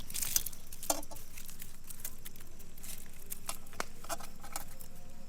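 Binding wire being wound and twisted around a foil-wrapped chicken: irregular small clicks and crinkles of wire and aluminium foil being handled.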